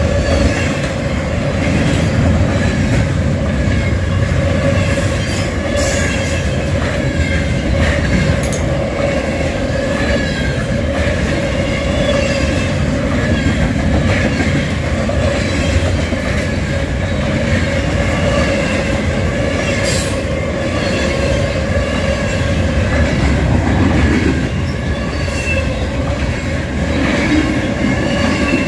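Freight train cars rolling steadily past, steel wheels rumbling on the rails with a steady whining tone over the rumble and a few sharp clicks.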